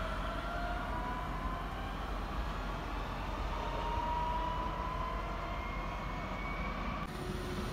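Red S-Bahn electric multiple unit pulling away, its traction motors whining in several tones that slowly rise in pitch as it accelerates, over a low steady rumble. The sound cuts off abruptly near the end.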